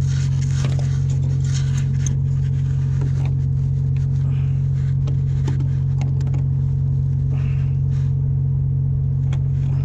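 Steady low drone of a ship's machinery holding one pitch, with small scattered clicks and scrapes of pliers working on an antenna coupler's wire terminal.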